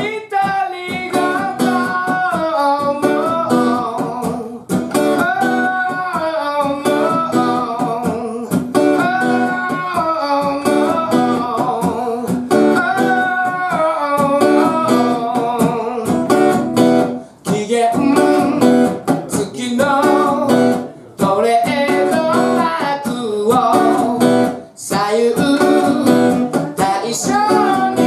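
A man singing while strumming a steel-string acoustic guitar, a solo live performance. The music drops out briefly three times in the second half.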